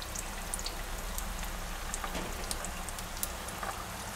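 Rice-paper spring rolls deep-frying in hot oil in an electric deep fryer: a steady bubbling sizzle with many scattered crackling pops.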